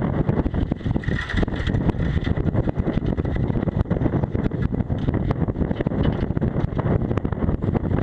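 Strong, gusty wind buffeting the camera's microphone aboard a small sailboat, a loud steady rumble broken by constant rapid crackles.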